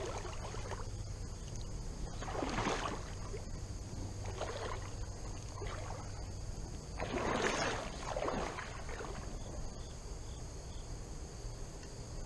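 Water sloshing in a creek: about five irregular short swishes, the loudest about two and a half seconds in and again around seven to nine seconds in. Steady high insect buzzing runs underneath.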